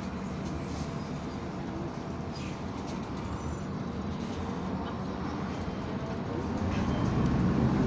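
Steady engine and drivetrain rumble of a MAZ 203 city bus heard from inside the passenger cabin as it creeps through traffic, growing louder near the end as the bus picks up speed.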